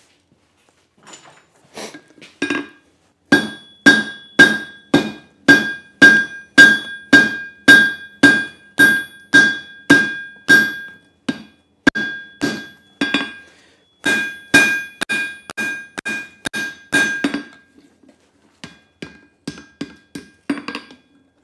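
Hand hammer striking red-hot leaf-spring steel over the anvil horn to draw out a taper, about two blows a second in runs broken by short pauses, each blow leaving the anvil ringing. The blows are lighter and more scattered near the end.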